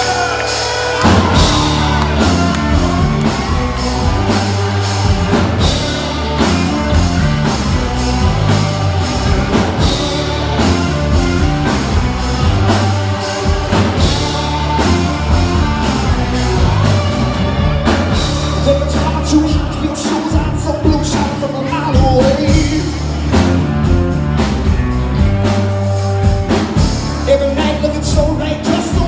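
Live rock band playing a song at full volume, with a steady drum beat, heavy bass and singing.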